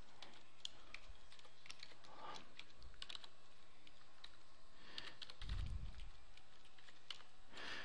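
Typing on a computer keyboard: a run of quick, irregular key clicks, with a soft low bump about five and a half seconds in.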